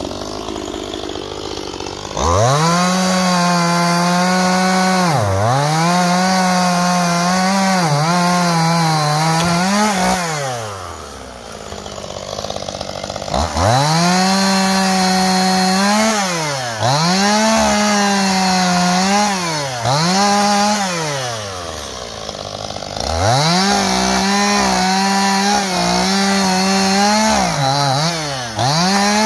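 Stihl two-stroke chainsaw bucking a fallen tree trunk. It idles, then runs at full throttle through three long cuts with short drops to idle between them. The pitch dips and recovers again and again as the chain bogs in the wood.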